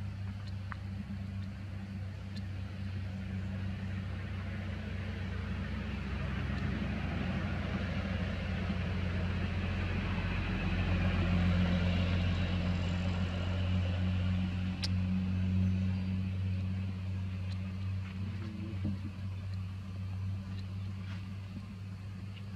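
A motor engine running steadily with a low hum, swelling louder toward the middle and easing off again near the end.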